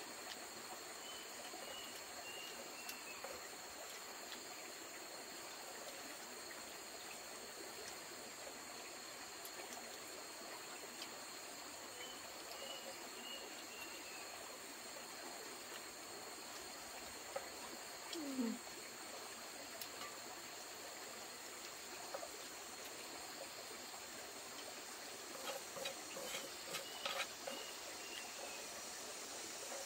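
Insects droning steadily at two high pitches, the background of a rural hillside. A short run of high falling calls comes three times, and a few light knocks sound near the end.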